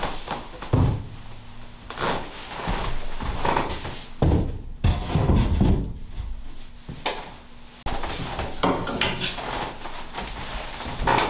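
Irregular knocks and thumps of items being handled and set down on a wooden kitchen countertop and cabinets.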